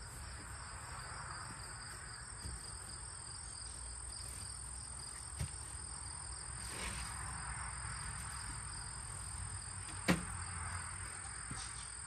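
Crickets chirping in a steady high-pitched chorus, with one sharp knock about ten seconds in.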